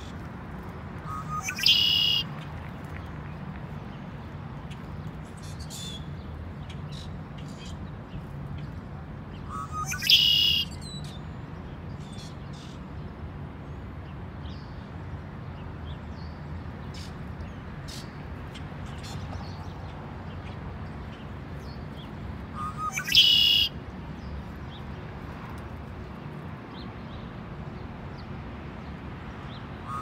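Male red-winged blackbird singing its conk-la-ree song three times, each a short low note running into a higher rasping trill, with faint short chips between songs. A steady low hum runs underneath.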